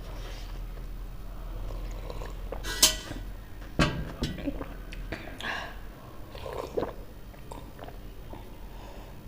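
Close-up eating sounds: chewing with scattered sharp clicks and crackles, the loudest about three seconds in and another about a second later.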